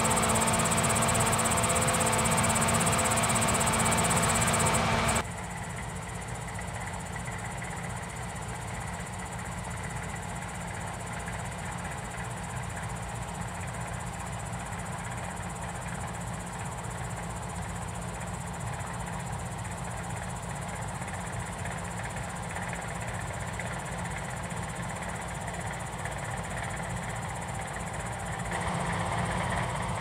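Combine harvesters running while harvesting canola: a steady engine and threshing drone. It is loud for about the first five seconds, with a held whine in it, then drops suddenly to a quieter steady drone that grows a little louder again near the end.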